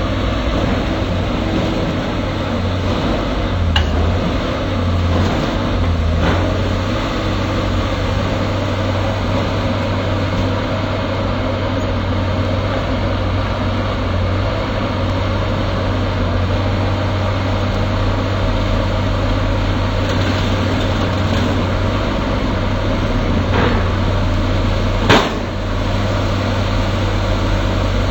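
Excavator engine running steadily under a dense rumble, with a few light knocks and one sharp bang near the end.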